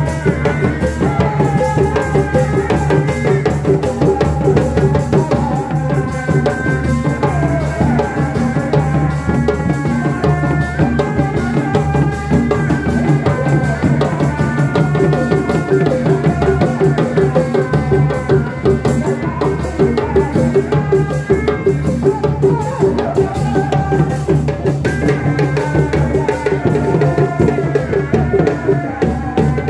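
Sundanese reak ensemble playing live: dogdog drums and other drums beaten with sticks in a dense, steady rhythm, with a wavering melody line carried over the drumming.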